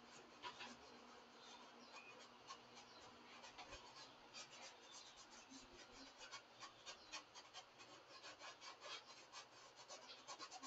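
Paintbrush brushing paint onto canvas: faint, quick scratchy strokes, several a second, coming thicker from about four seconds in.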